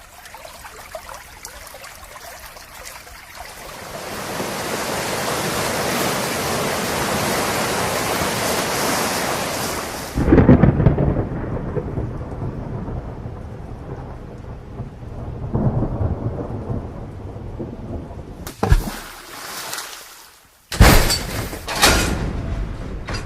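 Rain and thunderstorm sound effect: a steady rain hiss builds, then a loud thunderclap about ten seconds in rolls into a long low rumble. A few sharp, loud cracks follow near the end.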